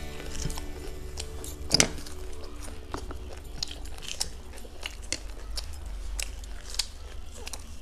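Close-miked biting and chewing of crumbed fried egg cutlets: irregular crisp crunches and mouth sounds, with one sharp, louder crunch about two seconds in. Faint background music in the first two seconds.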